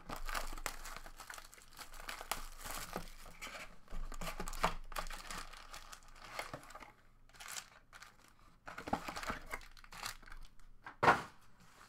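Cardboard trading-card hobby box torn open and foil card packs pulled out and handled, an irregular crinkling and rustling, with one sharp knock near the end as packs are set down on the table.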